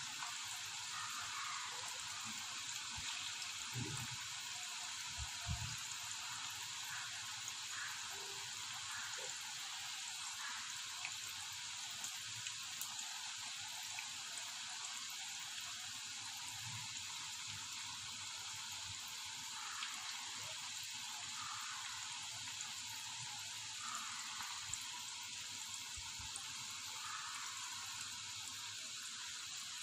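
Batter-coated cauliflower florets deep-frying in hot oil: a steady sizzle with scattered small crackles and pops.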